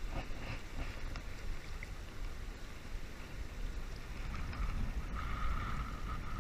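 Wind buffeting the camera microphone with a steady low rumble, over the rush of river water pouring across a low dam.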